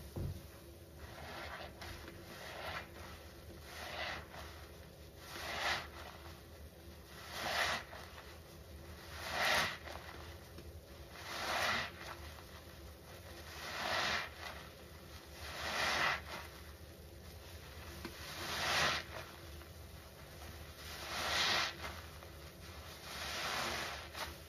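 Gloved hands squeezing a big handful of thick soap suds over and over, a wet squishing crackle of foam that swells and fades about every two seconds.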